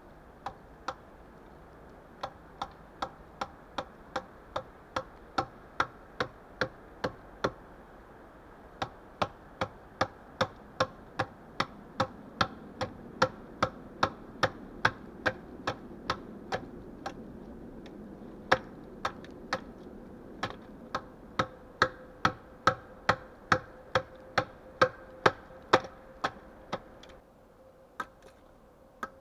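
Rapid, regular knocks of a hand tool striking wood, about two and a half a second, in runs broken by short pauses.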